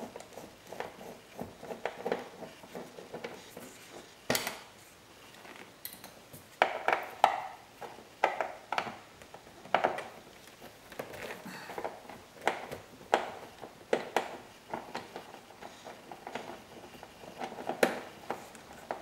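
Torx screwdriver working two Torx bolts loose from under a door pull: a run of small, irregular clicks and taps, with a few sharper ones now and then.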